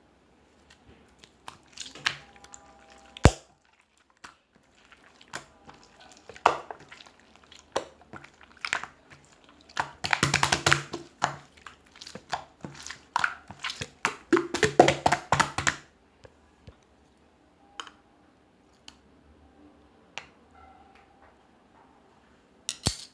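Slime being squeezed, folded and pressed by hand as its colours are marbled together, giving wet clicks and pops in irregular bursts. The clicking is thickest and loudest through the middle, sparse toward the end.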